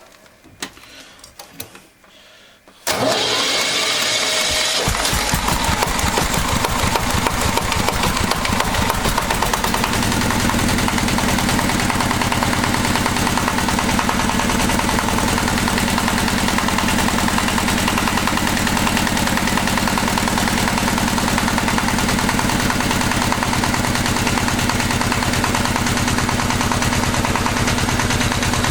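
A walk-behind tractor's single-cylinder diesel engine starts up suddenly about three seconds in, after a few faint clicks, and keeps running. It settles into even, steady running after about ten seconds. The engine has been rebuilt with a new piston and piston pin, which cured its knock.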